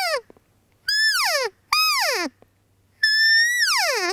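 Loud cow elk mews blown on a Rocky Mountain Hunting Calls Temptress open-reed cow elk call: the end of one mew, then three more, each starting high and sliding steeply down in pitch, the last held longer before it falls.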